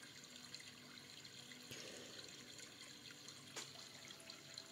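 Near silence: faint steady room tone with a single soft click about three and a half seconds in.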